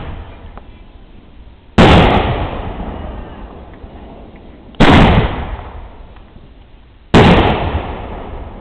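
Fireworks exploding close by: three loud bangs a couple of seconds apart, each trailing off in a long rumbling echo.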